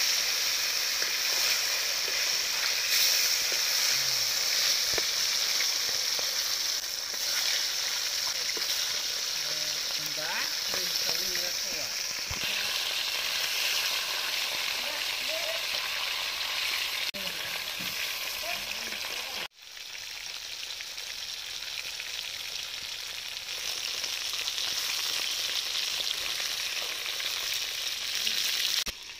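Whole fish frying in hot oil in a metal wok: a steady sizzle. It breaks off for an instant about two-thirds of the way through, then resumes.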